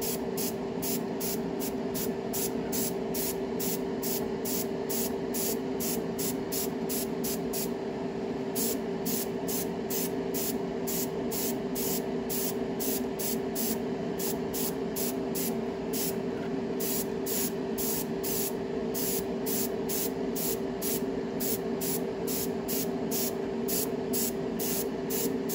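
Iwata Neo dual-action airbrush spraying a thinned paint mist, a hiss that pulses about three or four times a second, over a steady motor hum.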